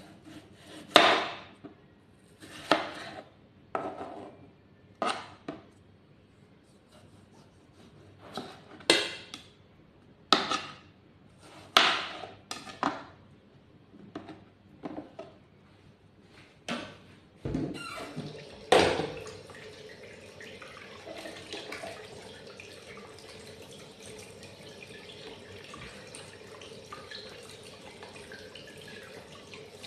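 Kitchen knife chopping through food onto a plastic cutting board: about a dozen sharp knocks a second or two apart. Then, about two-thirds of the way in, a steady rush of running water takes over.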